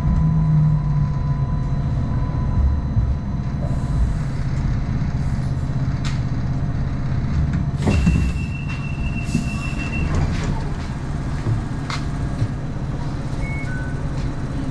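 Hong Kong Light Rail Phase I light rail vehicle running, heard from on board as a steady low rumble with a few sharp clicks. A high steady tone sounds for about two seconds about eight seconds in.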